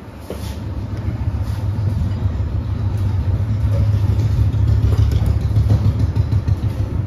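A steady low rumble, a little louder midway, with a few light metallic clicks of a spanner working on the exposed timing gears of an old Royal Enfield Bullet engine.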